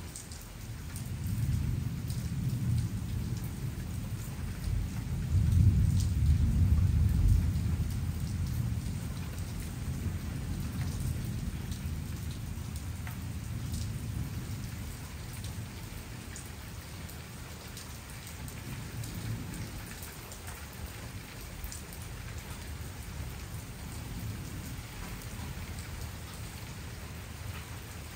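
Thunder rolling in a long, low rumble that builds over the first seconds, is loudest about six seconds in, then slowly fades, over steady rain.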